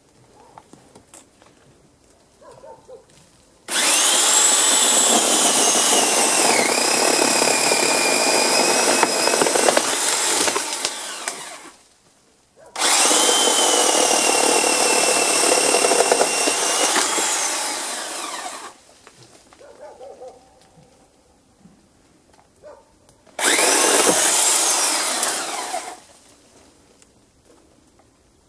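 Electric chainsaw cutting wood in three runs, about eight, six and two and a half seconds long. Each starts and stops abruptly, with a high motor whine that dips and recovers as it cuts.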